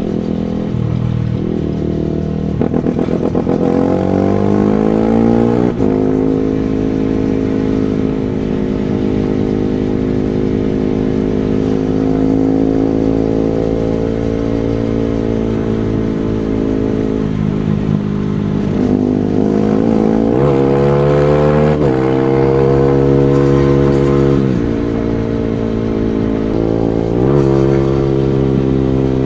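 Single-cylinder four-stroke supermoto motorcycle engine under way, the revs climbing in the first few seconds, held steady for a long stretch, then falling and rising again several times in the second half as the rider works the throttle and gears.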